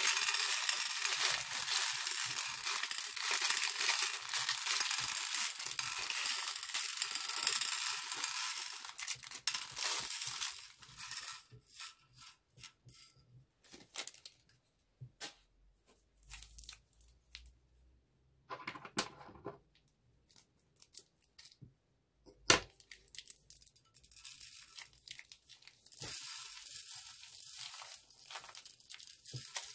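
Plastic bag crinkling as hands squeeze beads out of it into a glass dish. The crinkling stops about eleven seconds in, leaving scattered light ticks and two sharper knocks, then starts again near the end as beads are shaken from another bag.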